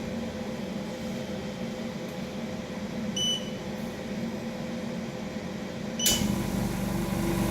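OCA lamination machine's air bubble remover running with a steady mechanical hum, giving a short beep about three seconds in. Near six seconds in it beeps again and a louder, lower pump motor starts up.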